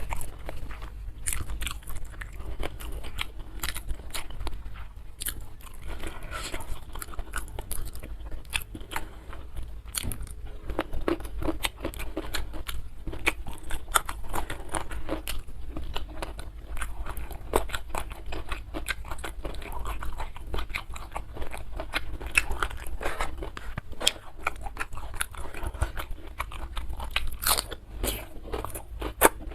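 Close-miked chewing and biting of crunchy food, most likely crispy fried catfish, with many sharp crunches and crackles throughout.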